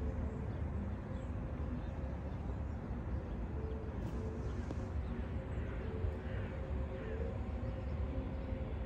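Outdoor city ambience: a steady low rumble of distant traffic, with a faint hum that comes and goes and a few faint bird chirps.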